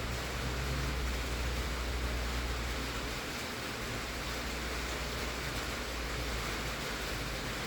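Heavy rain pouring onto a tin roof, a steady, dense hiss. A low rumble underneath fades out about three seconds in.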